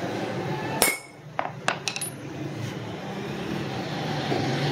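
Hammer striking a steel chisel held against an aluminium motorcycle wheel hub's spoke flange: one hard blow about a second in, then four lighter taps, each with a short metallic ring.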